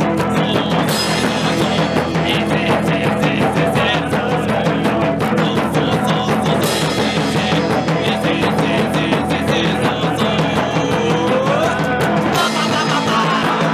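Rock band playing with drum kit and electric guitar, a steady loud beat throughout.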